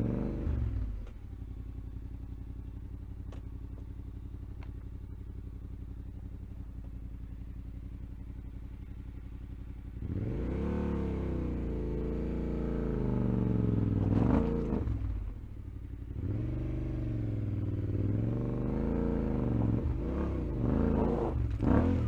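Yamaha Ténéré 700's parallel-twin engine dropping to a steady idle in the first second, then, about ten seconds in, revved up and down repeatedly with the pitch rising and falling, dipping briefly about fifteen seconds in.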